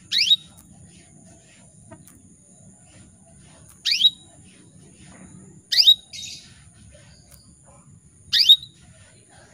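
Female canary in breeding condition giving four short rising call notes, spaced a couple of seconds apart: the call a hen uses to draw a male.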